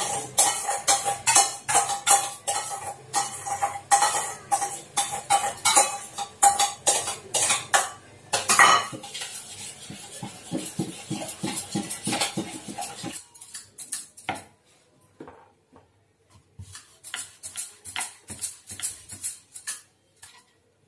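Rapid clinking of a metal utensil against a steel bowl as thick curd and cream are stirred by hand. After about thirteen seconds the clinks become sparser and quieter.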